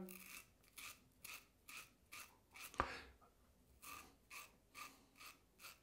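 King C. Gillette double-edge safety razor with a Feather blade cutting three-day stubble in short strokes: a faint, crisp rasp about twice a second, with one sharper click a little under three seconds in. The blade is tugging at the stubble as it cuts.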